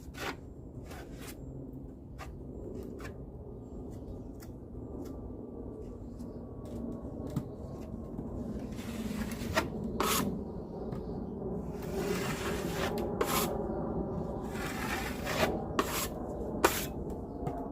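Drywall knife wiping over paper tape bedded in joint compound: several scraping strokes in the second half, among scattered sharp clicks.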